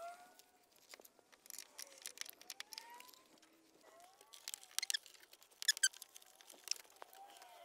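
Light, scattered clicks and taps of hands working at a pickup's grille, with a quick run of clicks about six seconds in. Faint rising and falling chirps sound in the background.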